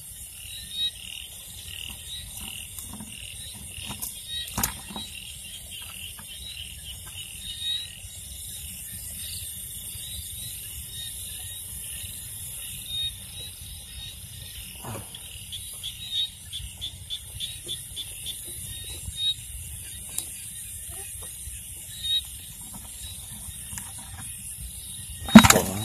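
Night chorus of calling frogs and insects: a steady high hiss with rapid pulsing trills, broken by scattered small clicks and knocks of handling. Near the end comes one loud knock as the plastic snake basket is lifted onto a bucket.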